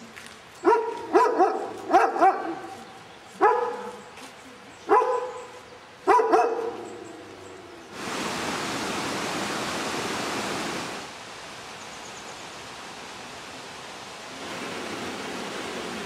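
A German shepherd-type dog barks about eight times over the first seven seconds, each bark falling in pitch. About eight seconds in, a steady rushing noise starts suddenly. It is loudest for about three seconds, then drops lower, and rises again near the end.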